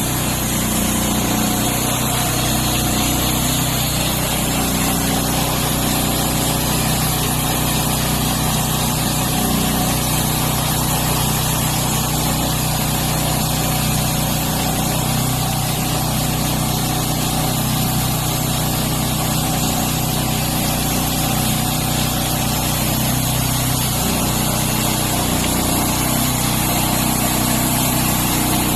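Small engine of a homemade sawmill running steadily at a constant speed, without pauses or changes in pitch.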